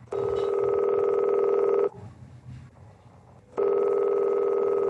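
Telephone ringing twice: two steady electronic rings of nearly two seconds each with a pause between. The call goes unanswered and rings through to an answering machine.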